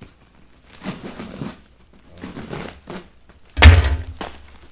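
A damaged cardboard shipping box being pulled open by hand: short bursts of rustling and scraping cardboard and packing tape, then one loud, deep thump about three and a half seconds in.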